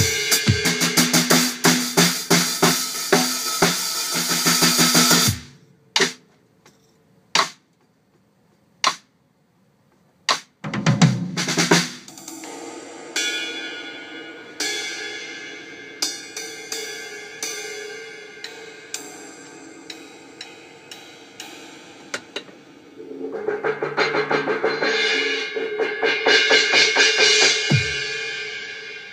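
Acoustic drum kit solo. Fast, dense drumming stops abruptly about five seconds in, followed by a few isolated hits with pauses, a quick flurry, and a run of single strikes left ringing. Near the end a loud cymbal wash swells up and then fades.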